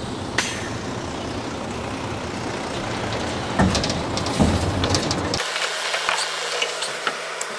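Tipper truck's engine running with its tray raised after dumping mulch: a heavy low rumble with a couple of thuds, which cuts off abruptly about five seconds in and leaves a steady low hum.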